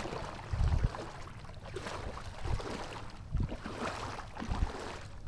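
Wind buffeting the microphone in irregular low gusts, over a rough wash of outdoor noise that is likely moving water.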